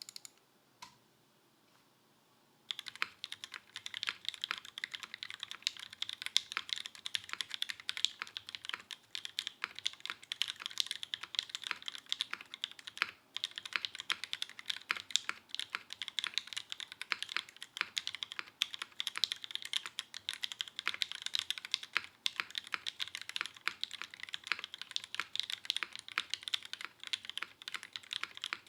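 Smith + Rune IRON180 mechanical keyboard with broken-in, lubed Kailh Cream linear switches on a carbon-fibre plate, no foam, and GMK keycaps, being typed on fast and continuously. A couple of isolated key clicks come first, then steady typing starts about three seconds in.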